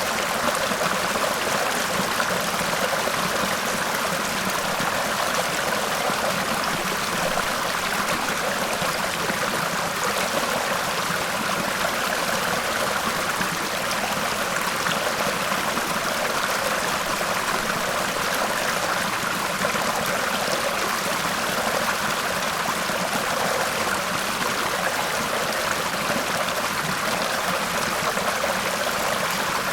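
Waterfall: water rushing steadily, without a break or change.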